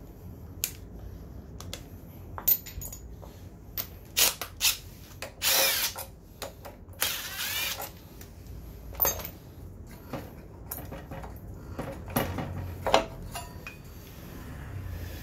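Cordless power driver spinning a bolt on a scooter's front disc brake caliper in two short runs, each under a second, about five and seven seconds in, with the pitch sweeping as the motor spins up and down. Sharp metallic clicks and knocks of tools and brake parts being handled come before and after.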